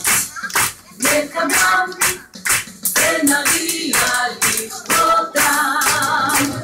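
Rhythmic hand-clapping in time with a song, about two claps a second, with singing over it.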